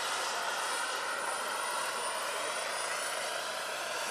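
Turbine-powered scale model K-Max helicopter in flight: its Phal Power GP70 gas turbine runs with a steady high whine over an even rush of rotor noise.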